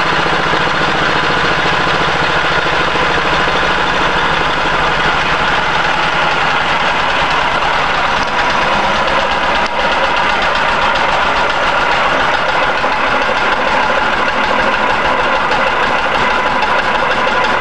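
Single-cylinder Chinese diesel engine in a Wheel Horse garden tractor, running steadily at idle with a rapid, even beat of firing strokes.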